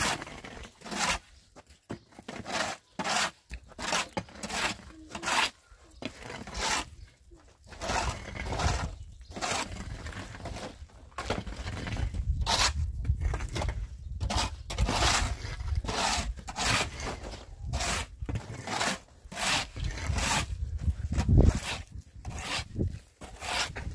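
Metal shovel scraping wet mud along the ground in repeated strokes, about one or two a second, uneven in spacing, with a second tool scraping at times. A low rumble runs underneath from about eight seconds in.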